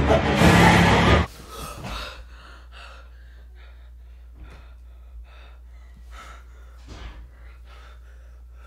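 Loud horror music cuts off suddenly about a second in; then a person gasps and breathes hard, about two short breaths a second, panting after waking from a nightmare.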